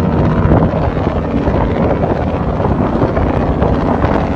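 Wind buffeting the microphone over a low, steady engine rumble with a faint hum.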